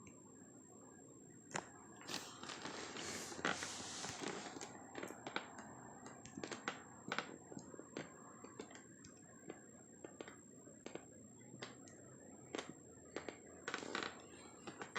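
Faint handling noise from a cardboard collectible box: scattered light clicks and taps, with a stretch of rustling about two to five seconds in.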